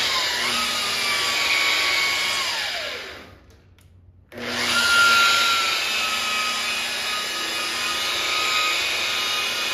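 Rotary car polisher with a foam cutting pad running at low speed while spreading compound over a painted panel, a steady motor whine. About 3 s in the motor is released and its whine falls away to a stop, then it starts again about a second later and runs steadily.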